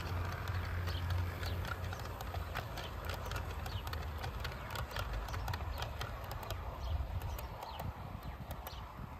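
Model railway train running on garden track, its wheels clicking irregularly over the rail joints, with a low motor hum in the first two seconds.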